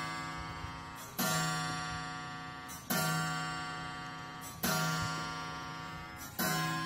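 Instrumental music: a single note or chord sounding about every 1.7 seconds, each ringing out and fading before the next, four times.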